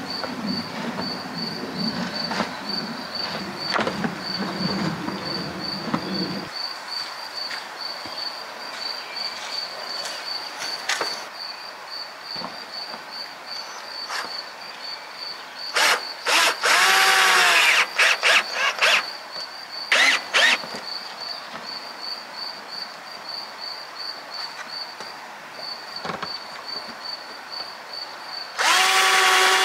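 Power drill run in several short bursts, its motor whine falling in pitch as it winds down after each, with one burst starting near the end. An insect chirps evenly and steadily throughout, and a low hum runs under the first six seconds.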